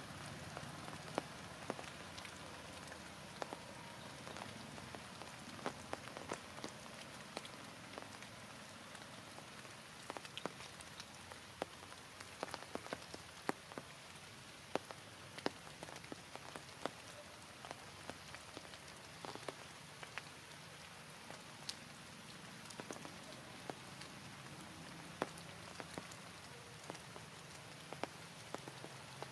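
Rain falling steadily, with frequent sharp, irregular ticks of single drops striking.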